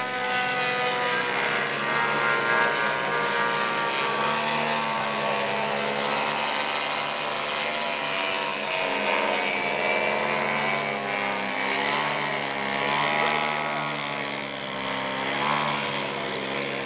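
Giant-scale radio-controlled aerobatic airplane's engine and propeller running steadily as it hovers nose-up. From about halfway through, the pitch wavers up and down with the throttle.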